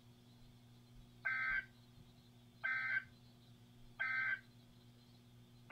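Emergency Alert System end-of-message tones: three short, identical bursts of digital data screech, each about a third of a second long and evenly spaced, over a faint steady hum. They mark the end of the tornado warning broadcast.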